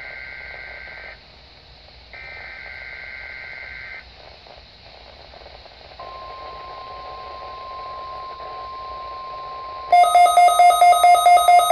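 NOAA Weather Radio test broadcast: two short bursts of SAME header data, a two-tone buzzing warble, then after a pause the steady 1050 Hz warning alarm tone starting about 6 s in. About 10 s in, a weather alert receiver's alarm sets off, loud and beeping about four times a second.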